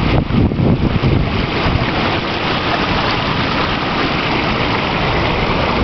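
Seawater rushing and splashing over rocks into a rock pool: a loud, steady wash of water.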